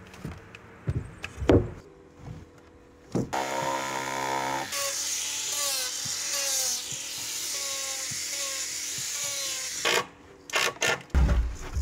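Corded angle grinder working a log: the motor spins up to a steady whine about three seconds in, then grinds into the wood for about five seconds, its pitch dipping again and again as it is pressed in, and stops near the end. Scattered knocks on wood come before and after.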